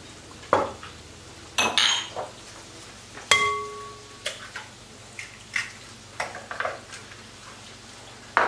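Glass and clay kitchenware knocking and clinking on a countertop: a string of short knocks, one clink about three seconds in ringing on for nearly a second.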